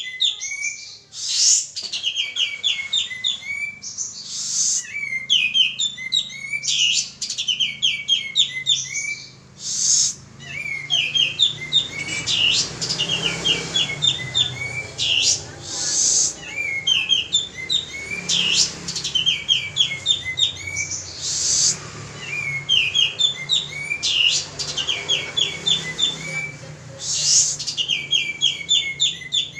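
Male kapas tembak (pied triller) singing without pause: short phrases of quick, high, chattering notes about once a second, with a louder sharp note every few seconds. This is a lure (pancingan) song recording, used to get caged birds singing.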